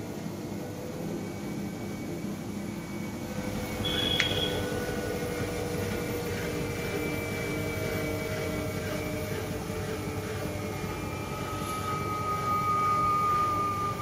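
IFB front-load washing machine drum spinning at high speed, its motor and belt drive giving a steady hum and whine that slowly shifts in pitch and grows louder near the end. A brief high tone sounds about four seconds in.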